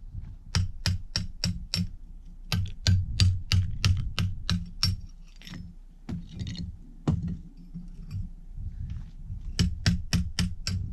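Hammer blows chipping hard cement off the top of a stone wall, in runs of quick sharp strikes about three a second, with pauses between the runs.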